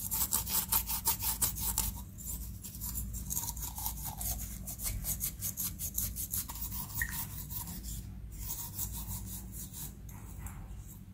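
Cloth scrubbing a small metal flower vase in rapid back-and-forth strokes to scour off stubborn stains, loudest in the first two seconds and fainter after.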